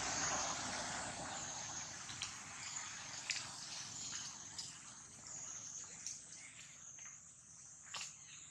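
Outdoor ambience with a steady high-pitched insect drone. A burst of rustling noise comes in the first second, and a few faint clicks follow.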